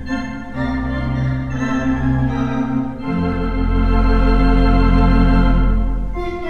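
Organ music accompaniment: held chords that change every few seconds.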